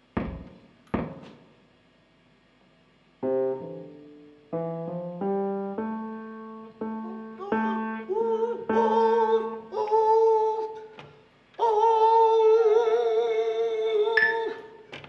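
Two sharp knocks, then a small electronic keyboard plays a slow, halting melody of single notes that each fade out. Near the end the notes are held longer with a wobbling vibrato.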